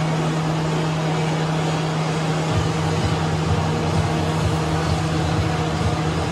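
Steady mechanical drone with a low hum and a hiss over it; from about two and a half seconds in, irregular low thumps come in under it.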